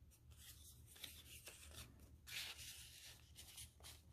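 Faint rustling of paper and card pages being handled and turned over in a handmade journal.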